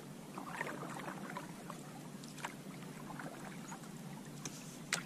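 Canoe on a creek: soft water sounds of paddling and of water lapping around the hull, with a few light knocks.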